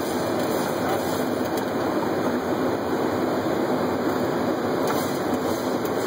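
Steady flight-deck noise of a Boeing 737 on approach: an even rush of airflow and engine noise heard from inside the cockpit, with no change in level.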